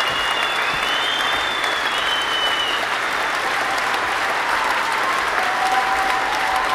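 Steady applause from a crowd, with long whistles over it near the start and again near the end.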